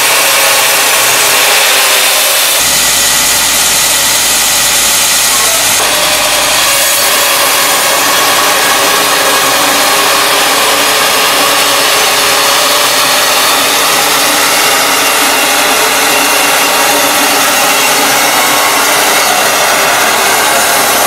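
Large horizontal band sawmill running and its blade cutting steadily through a big oak log, with a dense, continuous sawing noise. The sound shifts abruptly about two and a half and six seconds in.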